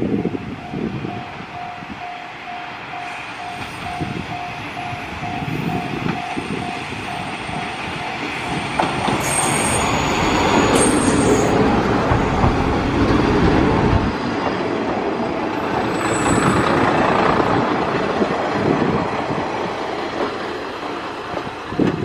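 Two-car KiHa 37/KiHa 38 diesel railcar train pulling into a station: engine and wheel rumble builds as it passes close by, with high wheel squeals twice as it brakes to a stop. Over the first nine seconds a repeating electronic tone sounds about twice a second, then stops.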